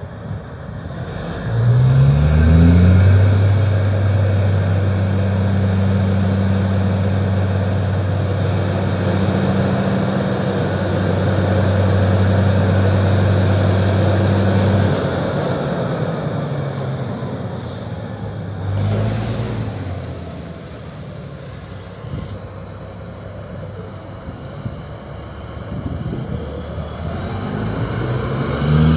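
Caterpillar mining haul truck's diesel engine revving up about two seconds in and holding high, steady revs while the dump body is hoisted to tip its load. About halfway through the revs fall away, followed by a short hiss, and the engine picks up again near the end as the truck moves off with the bed raised.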